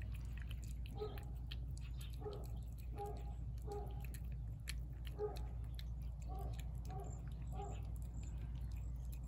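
Cat chewing and lapping canned wet food from a plate, a steady run of small wet clicks and smacks.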